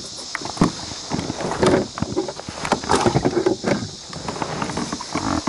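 Irregular knocks, clicks and rattles of handling on a plastic fishing kayak, with the camera mount being jostled, over a steady high-pitched insect drone.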